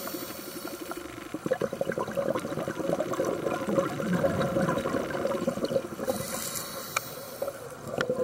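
Scuba diver breathing through a regulator underwater. A hissing inhale leads into a long bubbling exhale. Another inhale comes about six seconds in, and a new exhale starts near the end.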